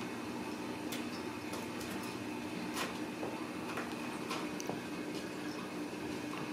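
Scattered light taps and clicks of kittens pawing and scrambling about at play, over a steady low room hum.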